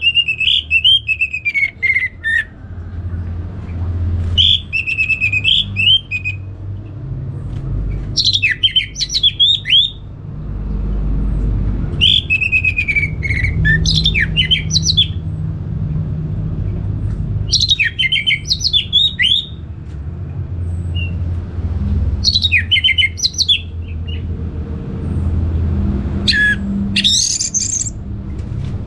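Orange-headed thrush singing: seven short song phrases of high, fast-changing whistles and trills, each about two seconds long with pauses between them. A low, steady rumble runs underneath.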